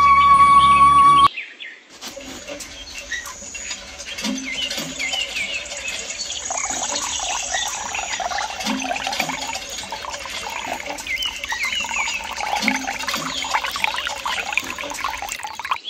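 Music for about the first second, cut off abruptly. Then a dense chorus of many small birds chirping continuously, over a thin trickle of water.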